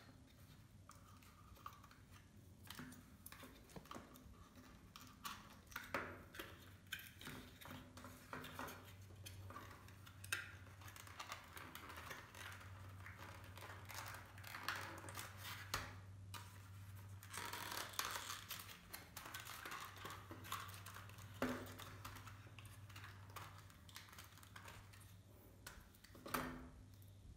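Foam-board puzzle pieces being handled, pressed and slotted into a paper-foam model house: faint scattered taps, clicks and scraping rustles, over a low steady hum.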